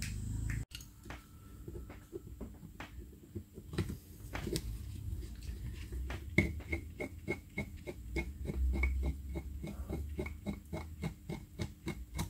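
A screwdriver working a stubborn screw on a carburettor being taken apart, scattered clicks at first, then short high squeaks about three times a second as the screw is turned.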